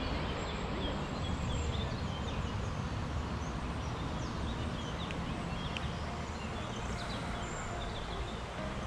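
Outdoor ambience: a steady rushing background with small birds chirping now and then, in short high calls.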